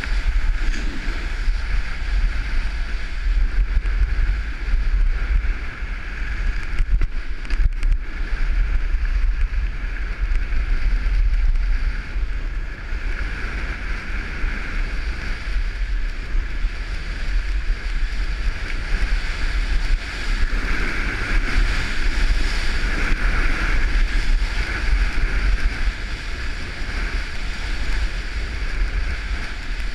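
Wind buffeting a helmet-mounted camera's microphone during a fast ski descent, a steady low rumble over the continuous hiss of skis on snow.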